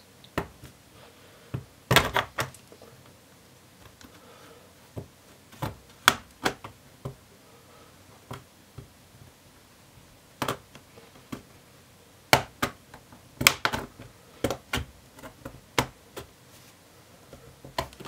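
Plastic clips of an HP 15-gw0502sa laptop's base panel snapping loose as a plastic pry tool is worked along the seam between base and palm rest: a string of sharp, irregular clicks, some in quick pairs and runs.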